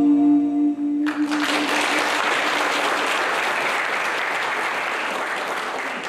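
The last held note of a song fades out as a church audience breaks into applause about a second in; the clapping goes on steadily and starts to thin near the end.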